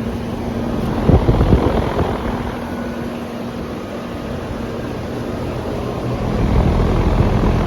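Several outdoor air-conditioning condensing units running together: a steady hum from the compressors and condenser fans. Low rumbles on the microphone swell up about a second in and again near the end.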